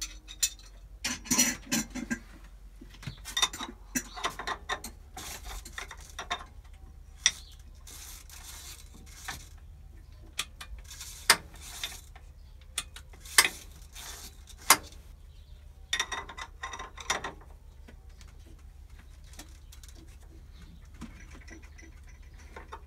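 Irregular metallic clicks, clinks and knocks of hand work on a vertical milling machine, its levers and fittings being handled and parts set down; a few single sharp clicks stand out in the middle, and it goes quieter over the last few seconds.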